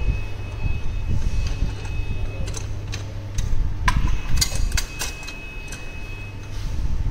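Irregular metallic clicks and clinks of a spark plug socket wrench being turned in the plug wells as the engine's spark plugs are unscrewed, over a steady low hum.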